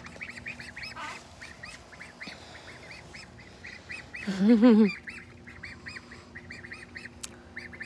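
Half-grown ducklings peeping over and over, several short high calls a second. About halfway through there is one brief, louder and lower-pitched sound.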